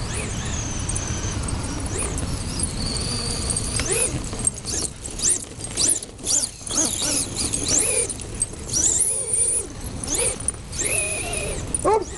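High-pitched whine of an RC truck's brushless electric motor (Castle 3600kv), rising and falling in pitch again and again as the throttle is worked. The sound gets busier and louder from about four seconds in.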